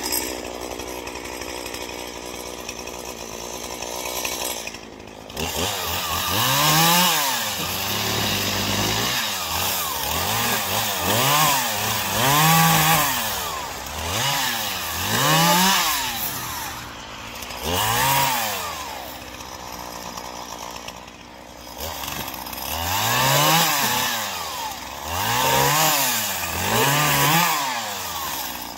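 Poulan Pro 5020 two-stroke chainsaw running near idle for the first few seconds, then revving up and dropping back over and over as it cuts into a felled pine trunk.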